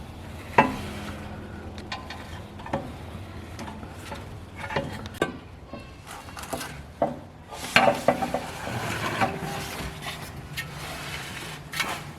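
Hand work on an engine sump: scattered clicks, taps and scrapes of tools and metal parts being handled, over a faint steady low hum.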